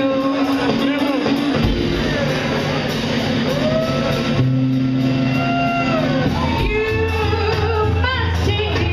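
Live jazz band playing a swing standard, with a melodic line carried over the rhythm section.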